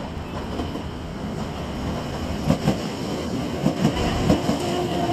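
A Nankai Koya Line stainless-steel commuter train runs into the station, its rumble growing louder as it nears. Its wheels click over rail joints in pairs, from about halfway through. A faint squeal sets in near the end.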